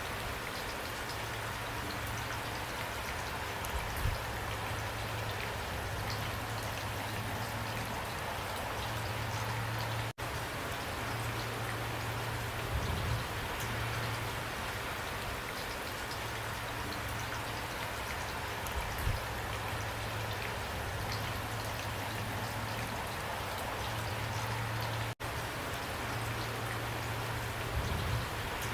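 Steady rain falling, with individual drops pattering and a few heavier drips landing. The sound cuts out for an instant twice.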